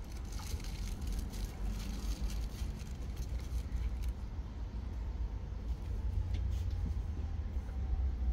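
Stadler Variobahn tram approaching, its electric motor whine faint and slowly falling in pitch over the second half, over a steady low rumble.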